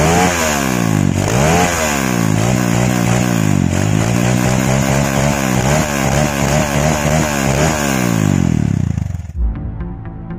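Single-cylinder Honda motorcycle engine, fitted with a Honda Tiger carburettor, revved in repeated blips, its pitch rising and falling over and over. It cuts off about nine seconds in and gives way to intro music.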